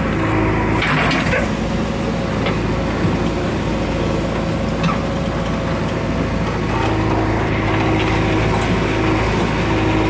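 JCB 3DX backhoe loader's four-cylinder diesel engine running under load, with the whine of its hydraulics coming and going as the backhoe arm swings and works, heard from the operator's cab. A short clatter about a second in, and a few small knocks.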